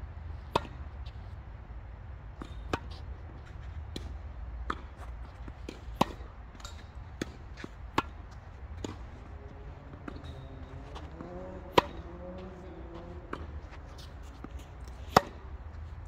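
Tennis rally: rackets striking the ball in sharp hits every two seconds or so, with fainter knocks of the ball bouncing on the court between them, over a low steady rumble.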